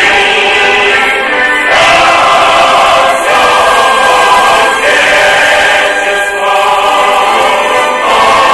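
Choral music: a choir singing long held chords that change about every three seconds.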